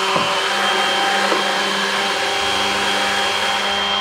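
Hand-held immersion blender running steadily with a constant motor whine, its blade churning a jug of liquid to emulsify a syrup, plant milk and coconut oil cream.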